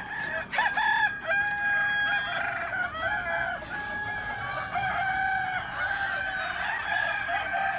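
A yard full of roosters crowing, many long calls overlapping one another without pause, with a few sharp clicks in the first second or so.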